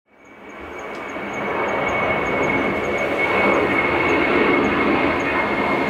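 Airplane engine noise, a steady roar with a high whine running through it, fading in over the first second or two and then holding.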